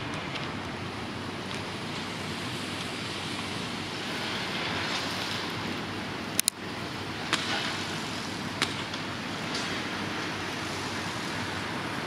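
Outdoor construction-site din: the steady running of diesel excavators mixed with street traffic, with a few sharp knocks about six to nine seconds in.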